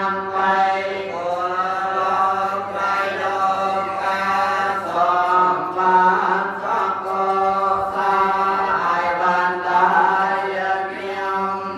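Several voices chanting Buddhist verses together in steady unison.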